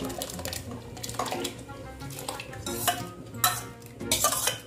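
A stainless-steel ladle scraping and clinking against a steel bowl as thick ground pearl-millet batter is scraped out into a pot of boiling water. There are several sharp metal clinks in the second half.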